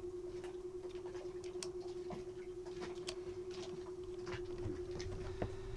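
Small scattered clicks and taps of metal parts as a diesel engine's starter motor is handled and reassembled by hand, over a steady hum.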